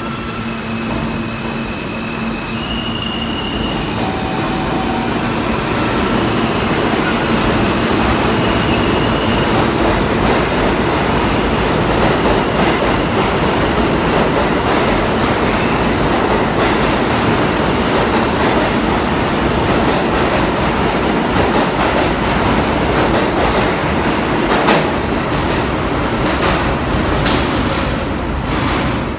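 Two New York City Subway R160 trains pulling out of the station together on adjacent tracks. A few steady electric tones step up in pitch as they start. Then a loud, building rumble of wheels on rail, with scattered sharp clicks, falls away near the end as the trains clear.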